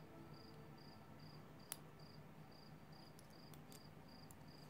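Near silence with a cricket chirping steadily in short high chirps, two or three a second. A single light click about a second and a half in, and a few fainter ticks later on.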